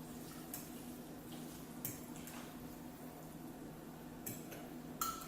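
A handful of faint, scattered clinks of a utensil against a bowl of noodles, over a faint steady hum.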